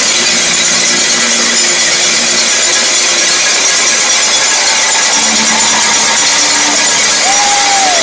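A stadium crowd ringing cowbells en masse: a loud, continuous metallic clatter with no breaks. Faint shouts or whistles rise above it near the end.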